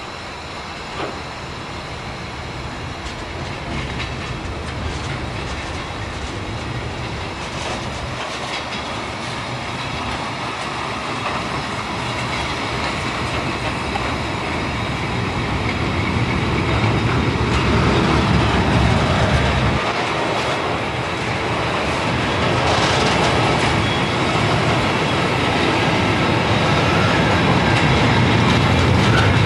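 Container freight train of flat wagons loaded with shipping containers rolling past, its wheels clattering on the rails, growing steadily louder.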